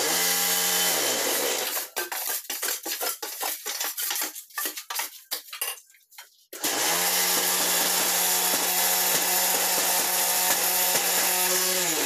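Concrete block-making machine working through a cycle: its motor runs with a loud, steady hum and rattle, winding down in pitch within the first second or so, then a run of irregular metal knocks and clanks as the die and mould are worked. About six and a half seconds in the motor starts again abruptly and runs steadily, winding down just before the end.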